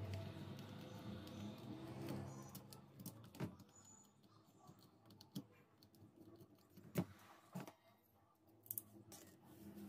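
Light clicks and taps of a screwdriver and fingers on the plastic trigger switch and housing of a disassembled electric drill, a handful of separate clicks with the sharpest about seven seconds in. A faint low hum sounds during the first two seconds.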